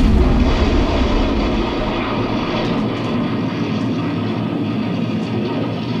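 Theatrical explosion sound effect: a sustained low rumbling roar, loudest at first and settling to a steady rumble after about two seconds.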